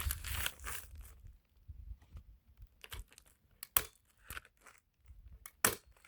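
Roofing underlayment crinkling and scraping for about a second, then a few sharp single crackles.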